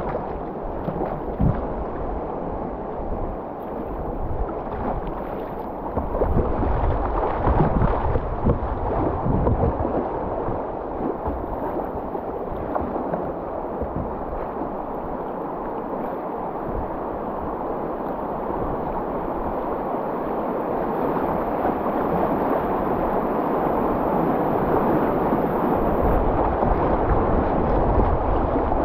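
Fast river water rushing and splashing around a kayak, with wind buffeting the microphone in low gusts early on. The rush grows steadily louder toward the end as the kayak runs into whitewater.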